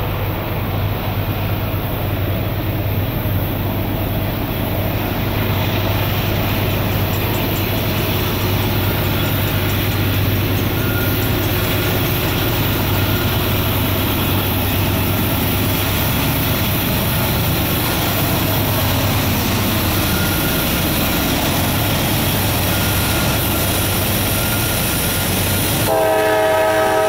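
Approaching Norfolk Southern freight led by GE Dash 9-40CW diesel locomotives: a steady low rumble that grows as the train nears. About a second before the end, the lead locomotive's air horn starts sounding a chord of several notes.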